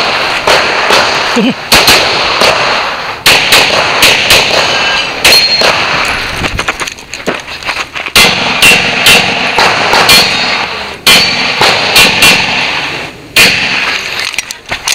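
Pistol fired in quick strings of shots with short pauses between strings, each shot sharp and ringing out, as the shooter shoots a timed practical-shooting stage.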